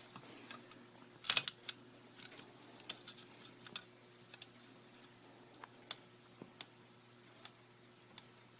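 Scattered small, sharp clicks and taps of hard plastic and metal parts being handled, a double click about a second in being the loudest.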